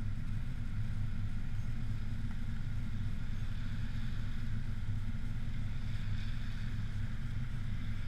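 Vehicle engine idling while stopped, a steady low hum.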